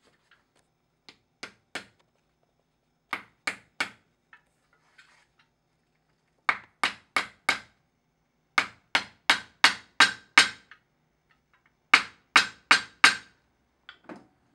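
Small hammer striking a metal punch held on a shoe heel, driving a pin lift into place: sharp taps in quick runs of three to six, about three a second, with short pauses between runs and two fainter taps near the end.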